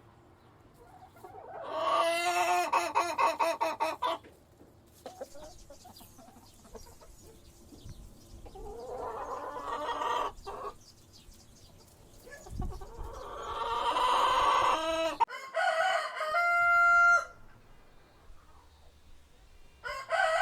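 Roosters crowing, about four long crows a few seconds apart, the later ones ending on a held steady note.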